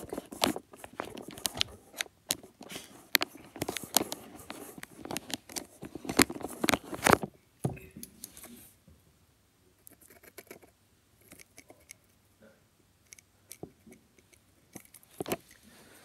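Close handling noise as something is plugged in: a busy run of clicks, knocks and rustles near the microphone. It stops about seven and a half seconds in, and only a few faint clicks follow.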